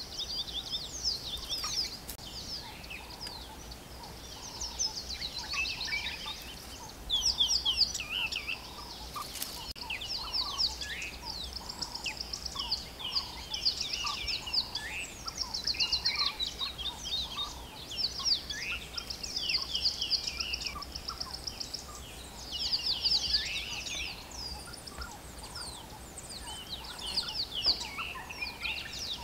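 A chorus of small wild birds chirping and trilling, several at once and overlapping, with repeated runs of rapid, evenly spaced notes.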